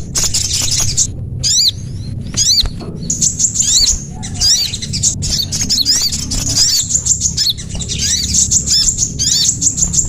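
Recorded small-songbird calls played as a bird lure: rapid, dense high-pitched chirps and repeated arched notes, non-stop, over a low steady hum.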